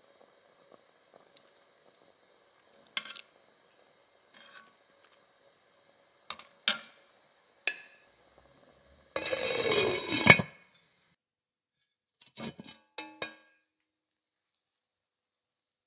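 Metal kitchen tongs clinking and tapping against an enamelled cast-iron pot while chicken thighs are set into the stock, a few scattered clicks. About nine seconds in comes a louder clattering rattle of cookware that falls in pitch and ends on a sharp clank, followed by a few more quick clinks.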